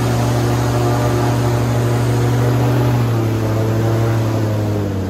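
Airboat engine and propeller running steadily and loud, heard from on board; the pitch eases down about three seconds in and drops further near the end as the boat throttles back.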